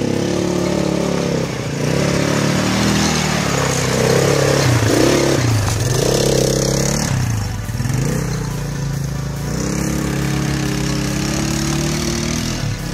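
Quad bike (ATV) engine revving and accelerating on a dirt track, its note dipping and climbing again twice in the middle as the throttle is eased and opened.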